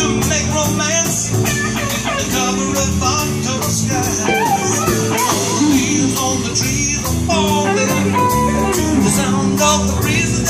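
A live rock band playing a song: electric guitar, electric bass, drum kit and Kurzweil keyboard, with a man singing lead.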